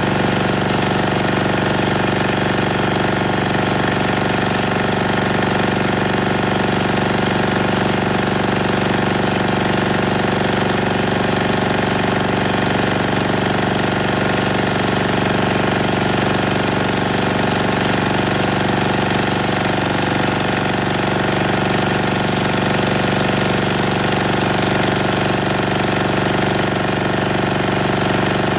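Denyo DA-2405 diesel generator running steadily under about 1.75 kW of heater load on diesel emulsified with 20% water.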